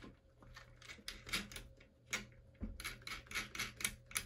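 A flurry of light, irregular metal clicks and taps as fingers work a Ninebot Max scooter's brake cable end, its spring and the brake-arm pin into place; the clicks come thickest in the second half.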